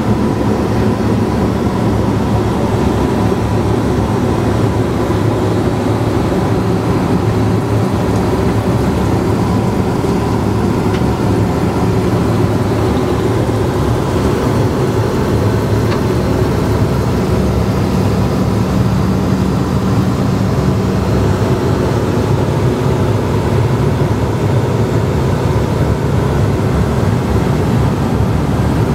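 Steady cabin noise of an Airbus A321 in cruise, heard inside its lavatory: a constant rush of airflow and engine noise with a low hum and a faint steady tone above it.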